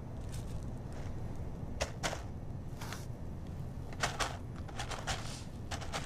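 Footsteps of a sable crunching in snow: a handful of short, irregular crunches over a steady low rumble.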